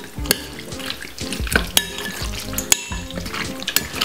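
Crushed garlic being stirred into raw chicken: wet mixing noise with a quick run of sharp clicks against the dish.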